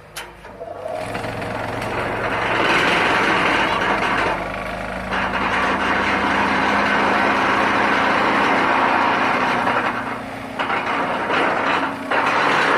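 Hydraulic vibratory pile driver on an excavator running at full vibration, a loud steady mechanical buzz over the excavator's engine under load. It builds up over the first couple of seconds and eases off briefly three times.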